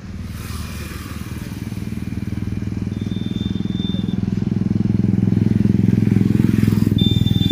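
Motor vehicle engine running with a steady, rapid pulsing note, getting steadily louder.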